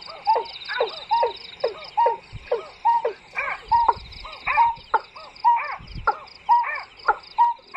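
Recorded bird call played as a lure through a horn loudspeaker: a short call dropping in pitch, repeated evenly about twice a second, with a fast, regular high chirping behind it.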